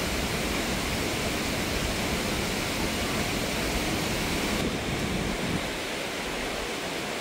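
Steady rushing of a large waterfall and its spray.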